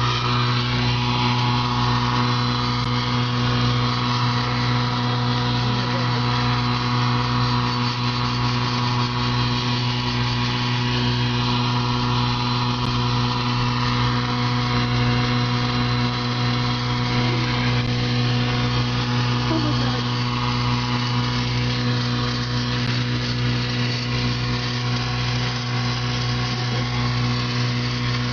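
Steady mechanical drone of a car running, heard from inside the cabin, with a low pulse repeating about every second and a half.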